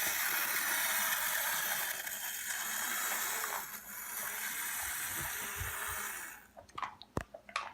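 Clockwork motor of a wind-up toy bus whirring steadily as the bus runs along its track, stopping about six and a half seconds in as it runs down. A few light knocks follow near the end.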